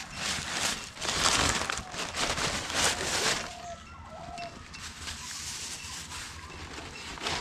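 Banana leaf and plastic bag rustling and crinkling in several loud bursts over the first three seconds or so, as fish are wrapped by hand. About four seconds in there are a couple of short bird chirps.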